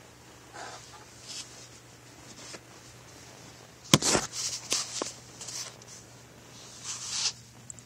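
A cat scrabbling and pawing in a box: soft rustles, then a sharp knock about four seconds in followed by a quick run of scratchy rustles and knocks, and another rustle near the end.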